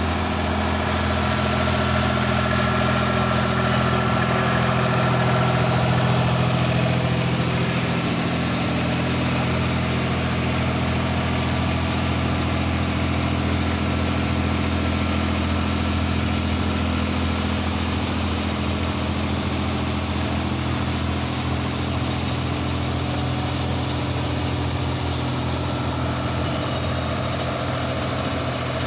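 Tractor engine running at a steady speed, driving a mounted road sweeper whose rotating brushes sweep the floor.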